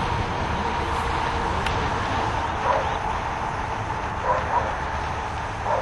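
A dog barking a few short times, once about three seconds in and twice in quick succession a little past four seconds, over a steady low background rumble.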